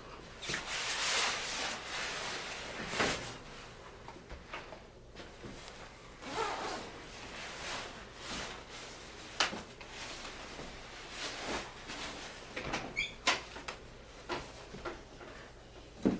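Irregular clicks, knocks and rustling, as of objects being handled, with a brief squeak near the end.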